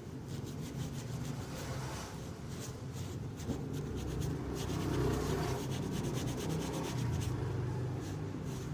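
Sandpaper rubbing over a baby cradle's frame in quick repeated strokes, sanding it down for repainting.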